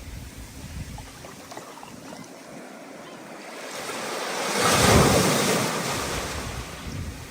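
Stormy ocean surf: a wave swells, crashes about five seconds in and washes back out, over a steady rush of wind.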